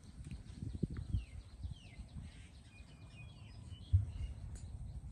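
Outdoor ambience: faint high chirps and short whistles, some falling in pitch, over a low rumble, with one thump about four seconds in.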